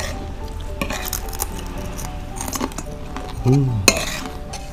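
Spoons clinking and scraping on ceramic plates while eating, a few sharp clicks scattered through, over soft steady background music. A short vocal sound is heard about three and a half seconds in.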